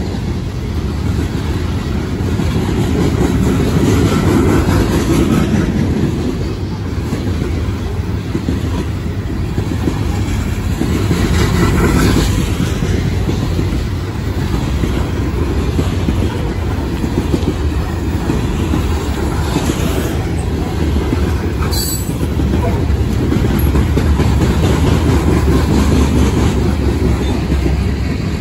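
Freight train of open-top hopper cars rolling past close by: a steady rumble of steel wheels on the rails, with a few sharp clicks and clanks, the plainest about halfway through and again later on.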